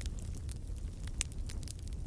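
Wood fire in a fireplace crackling, with irregular sharp pops over a steady low rumble of the flames; one louder pop comes a little past halfway.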